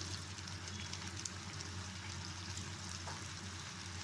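Mutton liver and onions frying in oil in a kadai: a steady sizzle with a few faint crackles.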